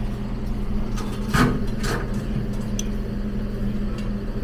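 A few short clinks and knocks of metal serving tongs against steel steam-table pans, the loudest about a second and a half in, over a steady low hum.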